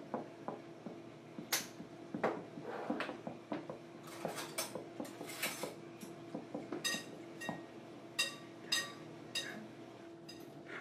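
Kitchen clatter: a string of light clinks and knocks like dishes or utensils being handled, several of them ringing briefly like struck glass or china, over a faint steady hum.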